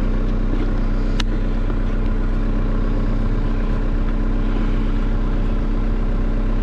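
Mini excavator's diesel engine idling steadily just after a cold start in winter, with one sharp click about a second in.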